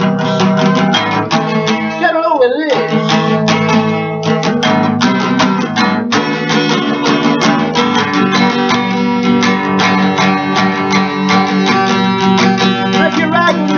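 Instrumental stretch of a rock song cover: acoustic guitar strummed in a fast, even rhythm, with a short falling glide about two seconds in and again near the end.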